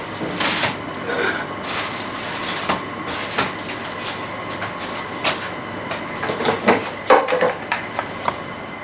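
Packaging being handled and unpacked: steady rustling with many short clicks and knocks, over a faint steady hum.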